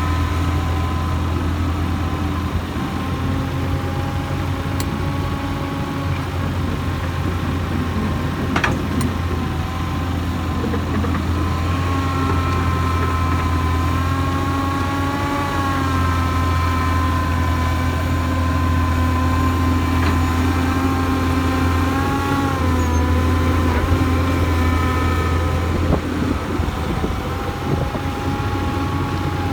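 Hyundai Robex 220-9SH hydraulic excavator running steadily as it works, a deep engine drone under a whining tone that rises and falls. A single sharp knock sounds about nine seconds in.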